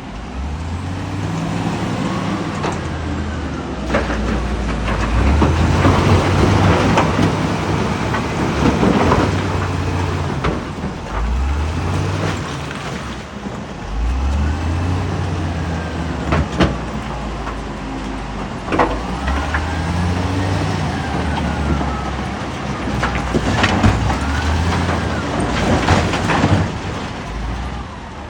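Heavy diesel construction machine working: the engine repeatedly revs up and settles back as it takes load, with a faint rising-and-falling whine over it and sharp metal clanks every few seconds.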